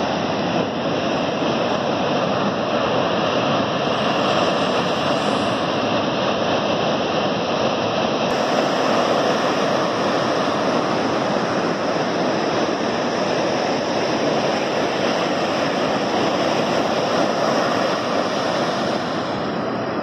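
Steady rushing noise of ocean surf on a sandy beach.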